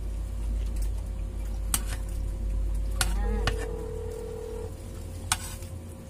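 Phone on speaker ringing through to the other end: one steady ringback tone about a second and a half long, over a low rumble. A few sharp clicks of a spoon against a plate.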